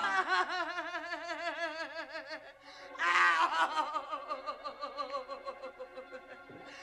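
A woman screaming in horror: long cries that shake rapidly in pitch like sobbing. A second loud scream starts about three seconds in and fades toward the end.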